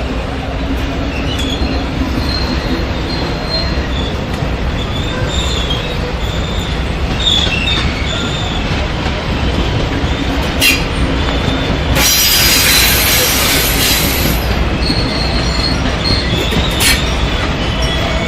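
Passenger train rolling slowly past, with a steady low rumble, faint wheel squeal and occasional clicks over rail joints. About twelve seconds in, a loud hiss lasts about two seconds.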